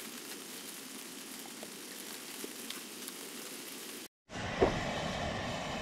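Falling snow ticking and hissing lightly on tent fabric. About four seconds in, after a cut, this gives way to the louder steady hiss of a lit Primus gas stove burner, with one knock.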